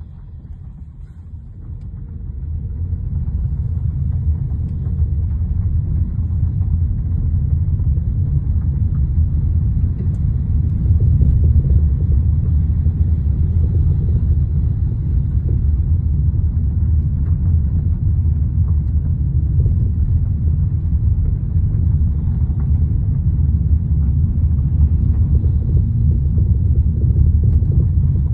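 Honda Civic sedan on the move: a steady low rumble from its tyres and suspension, building up over the first few seconds, with dull knocks from the suspension whose cause a service shop and a vibration test stand could not find.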